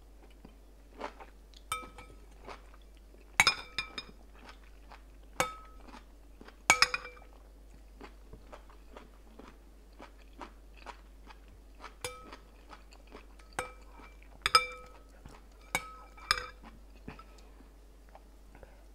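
Metal spoon clinking against a glass bowl, several taps ringing on briefly, mixed with close chewing of a mouthful of food.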